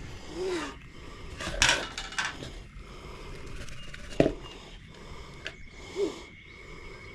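Fishing gear and bait being handled while rigging up: rubbing and scraping with a sharp click about four seconds in.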